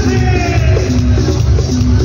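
Loud live cuarteto music from a band over a hall PA, with a heavy bass under short repeated notes and gliding higher lines.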